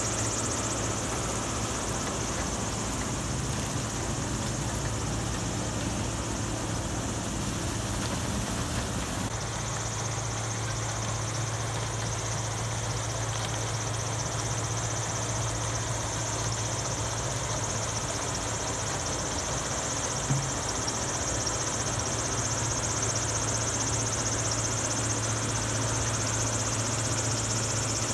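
Steady engine hum of sugarcane harvesting machinery running, changing in tone about nine seconds in, with one brief knock about twenty seconds in.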